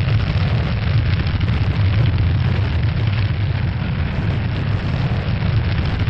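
Steady, loud, deep rumble with a hiss on top: the sound effect for the Curiosity rover's entry capsule tearing through the Martian atmosphere during atmospheric entry.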